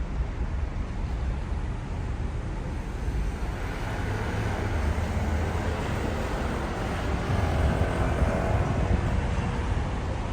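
City street traffic: a steady low rumble of vehicles, swelling from about a third of the way in as a vehicle passes close, loudest a little before the end.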